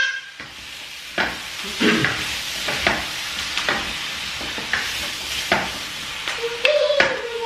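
Chopped peppers, courgette, onion and carrot sizzling in olive oil in a stainless steel frying pan, stirred with a spatula that scrapes and taps on the pan about once a second.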